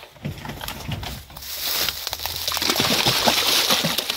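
Live carp tipped from a plastic crate into a lake: a run of short knocks and slaps as the fish flap, then loud, lasting splashing from about a second and a half in as they hit the water and thrash.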